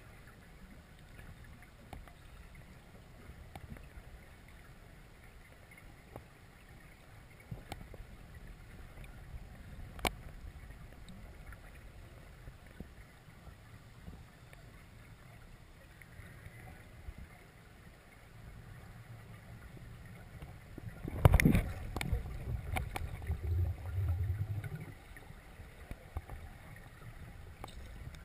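Muffled underwater ambience through a GoPro housing: a steady low rumble of water with scattered faint clicks. About three quarters of the way through comes a louder few seconds of knocks and rumbling.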